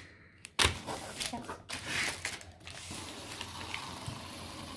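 A few knocks and rustles of handling, then from about three seconds in the steady whirr of a small toy top spinning on a hard worktop.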